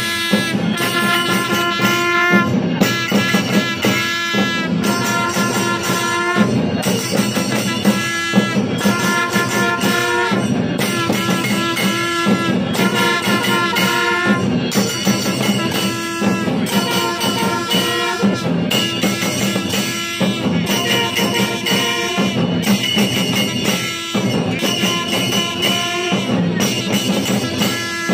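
Kailaya vathiyam temple ensemble playing: several long straight brass horns sound held blasts that bend up and down in pitch, breaking every second or two, over a steady beat of hand cymbals and drums.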